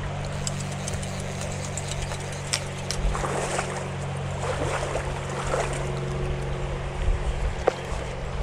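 Shallow river water running over stones, a steady low rumble with a light hiss, broken by scattered small clicks and knocks; the sharpest knock comes near the end.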